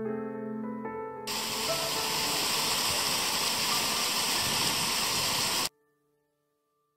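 Piano music for about a second, then a sudden cut to the steady rush of water pouring from a flume and falling into a rocky pool. The rush stops abruptly near the end.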